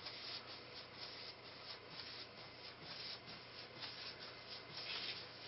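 Faint, repeated swishes of a paintbrush's bristles stroking wet polyurethane across a wooden tabletop, about two to three strokes a second.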